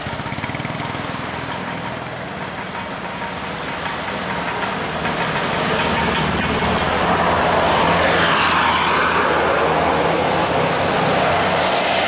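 Tour bus engine running and tyre noise growing louder over a few seconds as the bus approaches and drives past close by.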